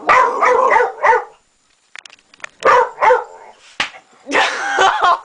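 Dog barking in several bursts, with a short pause and a few clicks in between.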